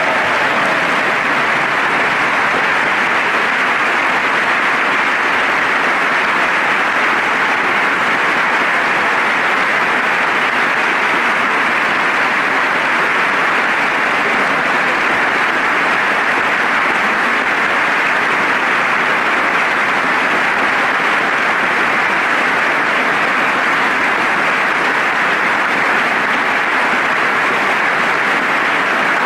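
A large crowd applauding steadily and without a break: a standing ovation filling a big chamber.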